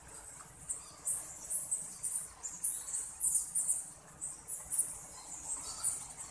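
High-pitched squeaking chirps from small animals, coming in irregular clusters several times a second.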